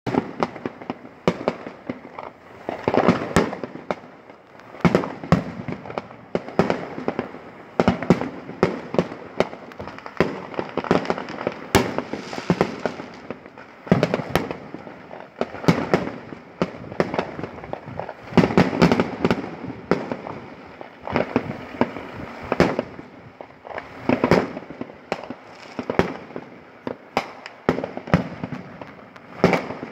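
Fireworks going off in many places at once: a dense, overlapping stream of bangs, pops and crackling, some louder than others, with busier clusters every few seconds.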